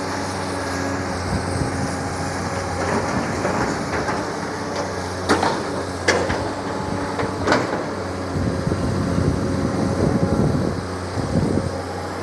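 Long-arm excavator's diesel engine running steadily under hydraulic load while it digs and moves river mud, with a few sharp metallic clanks between about five and seven and a half seconds in and a heavier rumbling stretch after that.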